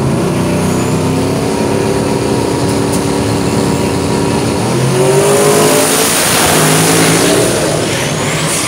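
Two drag-racing cars' engines holding revs on the starting line, then launching at full throttle about four and a half seconds in, the pitch climbing as they pull away down the strip.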